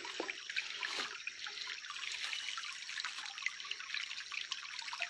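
Small stream trickling over its bed: a steady rush of water with many small drips and splashes.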